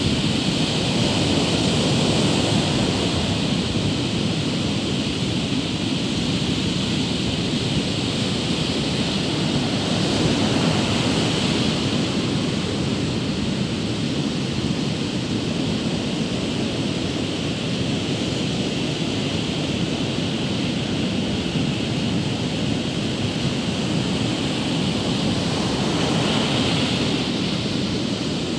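Rough surf breaking and washing onto a sandy beach: a steady rushing noise that swells a little a few times, with wind on the microphone.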